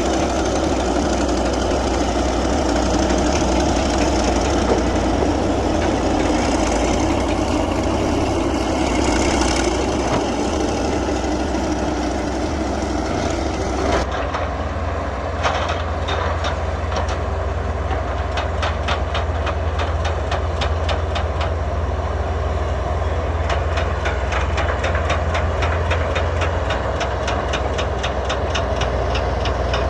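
Komatsu D155A crawler bulldozer working, its diesel engine running with a steady low drone. About halfway through the sound changes abruptly, and a rapid, even clanking of the steel track links comes in.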